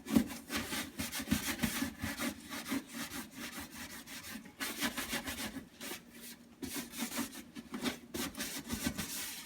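Scrubbing sponge rubbed rapidly back and forth over a stain caked on the bottom of a refrigerator, a rasping scrub of quick repeated strokes.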